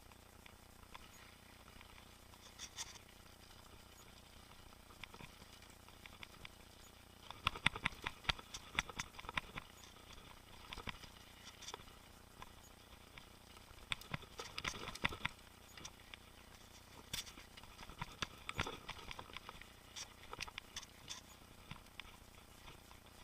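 Mountain bike rattling and clicking over rough trail: irregular taps and knocks from the bike and tyres, in busier spells several seconds in, around the middle and again a little later.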